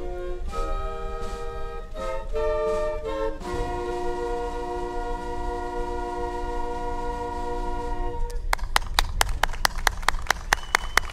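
A school concert band of winds and brass ends its piece on a long held final chord lasting about four and a half seconds, then the crowd breaks into applause about eight seconds in.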